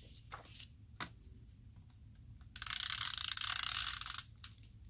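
Tombow adhesive tape runner drawn across a sheet, laying down glue tape in one steady stroke of about a second and a half, starting past the middle. A faint click about a second in.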